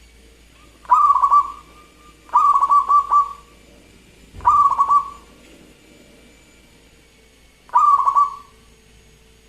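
Zebra dove (perkutut) cooing: four short rippling phrases, each a quick run of notes, spaced a second or more apart.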